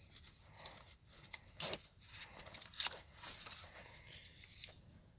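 Light handling noise as the camera is mounted on a tripod: scattered small clicks and rustles, a sharper click about a second and a half in and another near three seconds.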